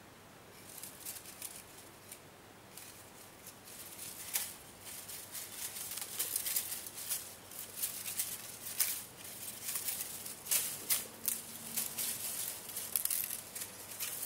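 Fingers brushing through the long, dry leaves of a dried-out plant, making an irregular crisp, crackling rustle. It starts faintly and grows louder and denser after about four seconds.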